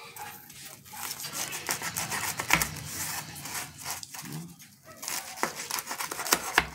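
Kitchen knife sawing through the crisp fried panko crust of a sushi ball, a dense crunching and crackling, with two duller thuds, about two and a half seconds in and near the end, as the blade comes down on a plastic cutting board.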